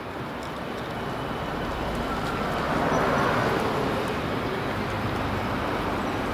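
A vehicle passing with a steady rushing noise that swells to its loudest about three seconds in, then eases off a little.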